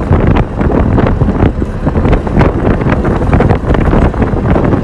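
Strong wind buffeting the microphone over a loud, steady low rumble, with irregular gusts throughout.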